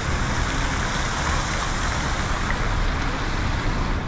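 Steady rush of road traffic on a busy city boulevard, cars passing in a continuous wash of noise.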